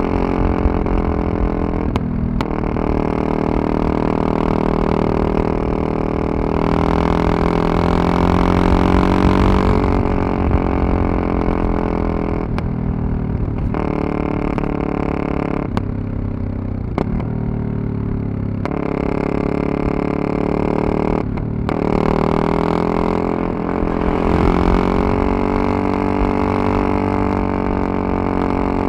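Yamaha MT-03 660's single-cylinder engine pulling under way, the pitch rising under throttle and dropping back, with short breaks in the sound at gear changes or throttle-offs, several of them between about twelve and twenty-one seconds in.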